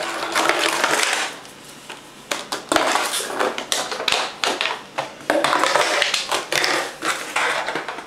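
Small dog chewing and pushing an empty plastic soda bottle around a tile floor: plastic crackling and tapping in irregular bursts, with a short lull about a second and a half in.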